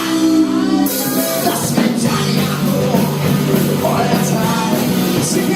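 Rock band playing live, loud and continuous. A held chord rings through the first second, then the band plays on.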